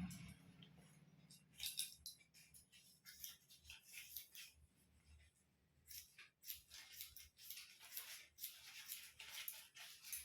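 Hair-cutting scissors snipping through hair: faint, crisp snips in quick irregular runs, with a short lull about five seconds in.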